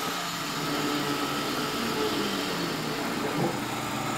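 Benchtop milling machine running steadily, its end mill cutting the final breakthrough pass around a hand-held slingshot blank, with the lower tones shifting slightly as the cut loads the spindle.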